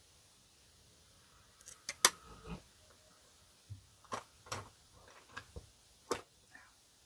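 Clicks and light knocks of makeup compacts and tools being handled and set down on a table: one sharp click about two seconds in, then a scatter of softer clicks.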